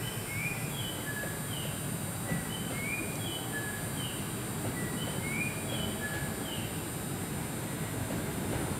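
A phrase of short, high bird-like chirps, four or five notes, repeated about every two seconds over a steady low hum.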